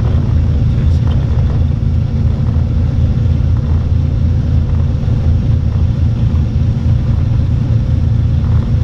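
Cessna 310R's twin piston engines and propellers running at low power, heard inside the cockpit as a steady low drone while the aircraft rolls along the runway after landing.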